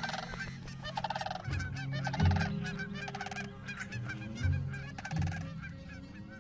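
Sandhill cranes calling: rolling, rattling calls repeated about once a second. Lower pitched tones sound beneath them, along with quick chirps of small birds.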